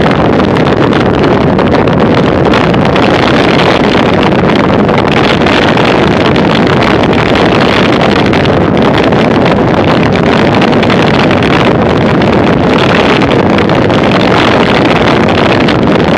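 Loud, steady wind noise rushing over the microphone of a racing bicycle's onboard camera moving at about 40 km/h.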